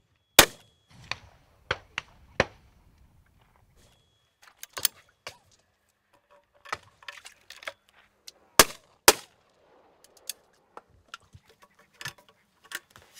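Over-and-under shotgun fired repeatedly: one very loud shot about half a second in, further lighter reports over the next two seconds, and a quick pair of shots about half a second apart around two-thirds of the way through. Near the end, lighter metallic clicks and knocks as the gun is broken open and reloaded.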